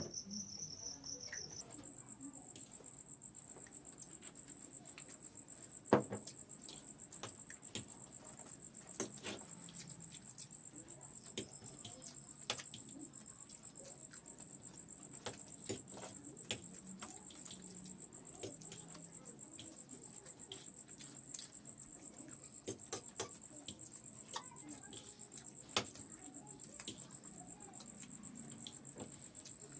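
Eating sounds of a chow mein challenge: scattered soft clicks and taps of chewing and utensils, one sharper tap about six seconds in. A steady high-pitched whine runs underneath, stepping up in pitch about a second and a half in.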